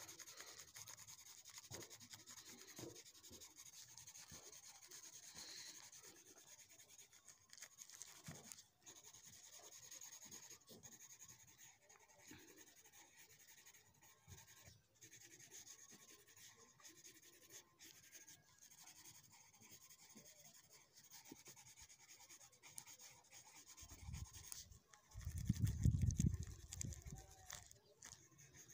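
Faint, scratchy rubbing of crayon strokes on paper, with a louder low rumble about 25 seconds in.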